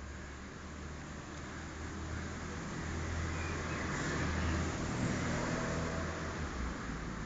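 Low outdoor background rumble with a hiss, growing louder over the first few seconds and easing near the end.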